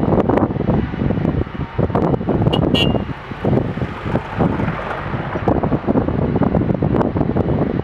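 Wind buffeting the microphone in uneven gusts, with a brief high chirp about three seconds in.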